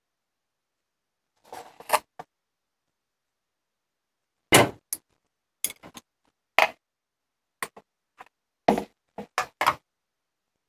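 Kitchen utensils and containers knocking and clattering in a series of about a dozen short, sharp taps with pauses between, as sugar is added to drained vegetables for pickling.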